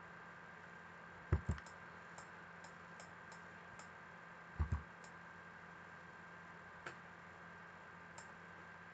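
Computer mouse clicks: two loud double-clicks, one about a second and a half in and one near the middle, with several faint single ticks between and after them. A steady low electrical hum runs underneath.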